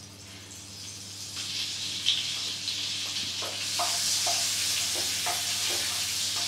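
Butter melting and sizzling in hot oil in a nonstick frying pan, the sizzle building and growing louder. From about three seconds in, light taps and scrapes of a wooden spatula stirring it.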